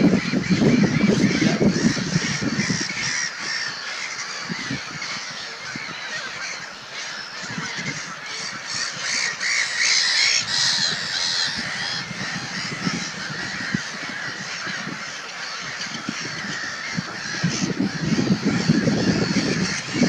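A busy chorus of waterbird calls, with honking and harsh cawing calls. A burst of higher, chattering calls comes about halfway through.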